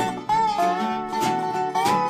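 Acoustic string trio playing an instrumental passage: a lap-style slide guitar carries a gliding melody over strummed acoustic guitar and ukulele.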